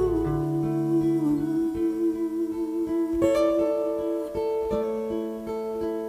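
Background music: a held note fades out, then acoustic guitar picks single ringing notes as a new song begins.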